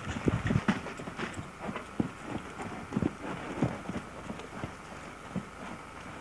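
Hoofbeats of a horse being driven forward on the ground: a run of uneven thuds, closest together in the first second, then spaced about half a second apart.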